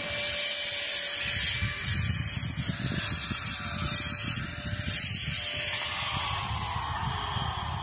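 A small electric power tool running steadily, with a hiss that comes and goes, as metal is worked during railing installation. Wind buffets the microphone.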